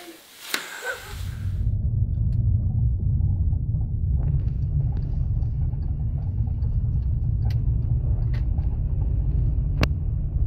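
Steady low rumble of a car being driven, heard from inside the cabin, setting in about a second in. Three short clicks come in the second half.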